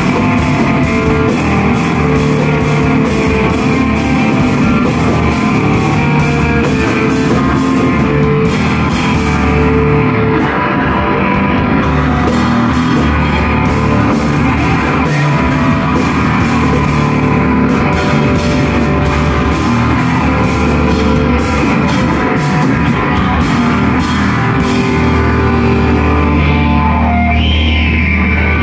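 Live rock band playing loudly, with electric guitars and a drum kit. The cymbals drop out for a few seconds about eight seconds in and again near the end.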